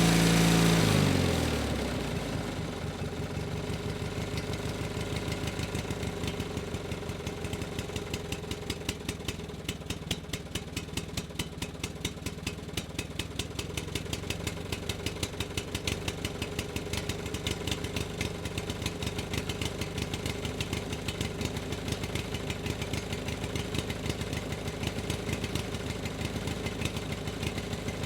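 Engine dropping from high revs in the first couple of seconds and settling into a steady idle with an even, rapid beat.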